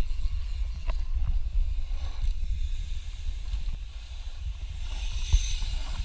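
Wind rumble and rattle on a mountain bike's handlebar-mounted action camera riding a dirt trail, with tyres rolling on dirt and a few sharp knocks as the bike hits bumps, the loudest about five seconds in.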